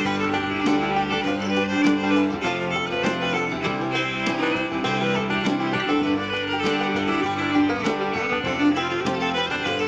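Background music: an upbeat country-style tune with fiddle and plucked guitar over a steady beat.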